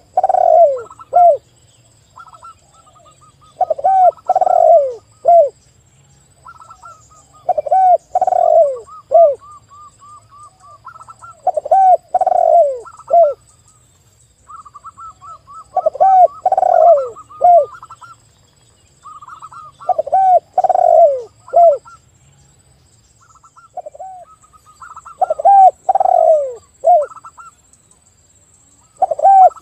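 Spotted dove and zebra dove cooing together. Loud phrases of three or four low, falling coos come about every four seconds, and between them run rapid trains of short, higher-pitched staccato coos.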